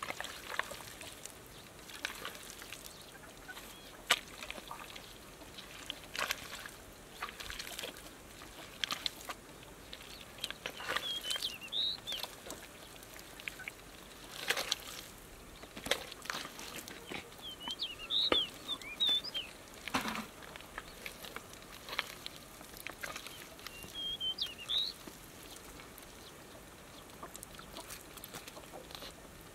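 Bare hands digging, slapping and squelching in thick wet mud, a series of short irregular wet smacks. A bird chirps briefly a few times.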